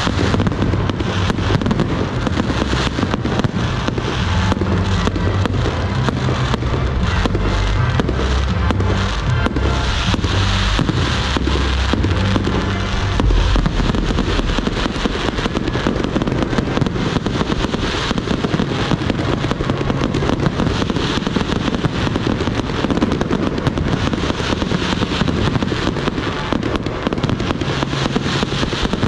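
Fireworks display: a continuous, dense run of shell bursts, bangs and crackling rockets.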